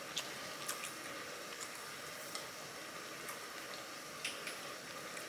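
Close-up mouth sounds of a person chewing food: scattered sharp, wet smacks and clicks, irregular and about one or two a second, over a steady hiss.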